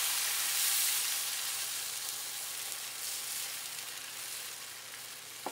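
Water poured into a hot braising pot of onions and tomato sauce, the liquid sizzling and hissing on the hot pan and fading gradually.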